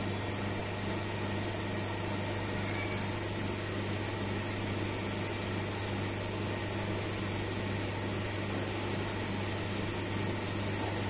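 A steady low hum under a constant hiss, unchanging and with no separate events standing out.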